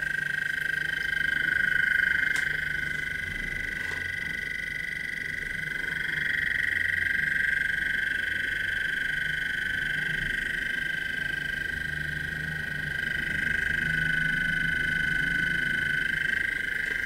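Bedini SSG self-oscillating motor running, its magnet rotor spinning past the pulsed coil: a steady high-pitched whine that wavers slightly in pitch, over a low hum.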